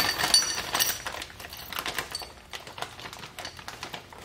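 Small metal flange bolts clicking and rattling against each other in a clear plastic hardware bag as hands rummage through it, with the bag crinkling. The clicking is busiest in the first second, then thins to scattered, quieter clicks.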